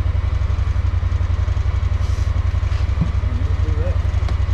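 Honda Pioneer 1000 side-by-side's engine idling steadily, an even, rapid low pulsing, with a short click about three seconds in.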